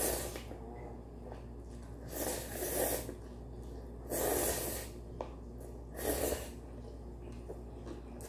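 Instant ramen noodles slurped into the mouth: about four short, noisy slurps roughly two seconds apart.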